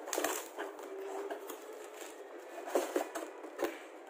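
Corrugated cardboard shipping box handled and opened by hand: flaps rubbing and scraping, with a few light knocks as the box and the packed product are moved.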